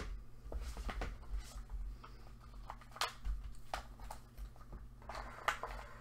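Scattered light clicks and taps of small craft items and gloved hands being handled, with a faint steady hum underneath.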